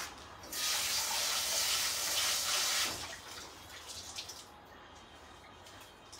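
Kitchen tap running into the sink for about two and a half seconds, then shut off, followed by a few faint knocks.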